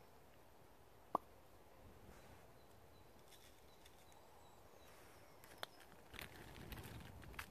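Near silence with small handling sounds: one sharp click about a second in, a fainter click later, and soft rustling of a plastic bag near the end.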